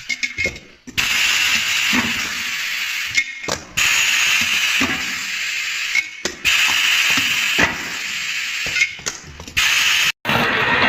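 A machine mechanism working through a repeating cycle about every three seconds: a steady hissing run, then a click and a short pause, four times over. It stops abruptly near the end.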